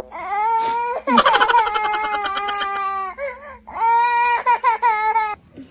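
A young child crying out in three long, drawn-out wails of fairly steady pitch. The middle wail lasts about two seconds.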